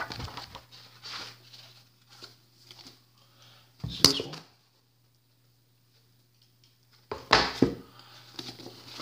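Paperback manga volume being handled, its paper pages rustling as they are flipped. A sharp loud crackle comes about four seconds in, then a few seconds of silence, then more loud handling noise near the end.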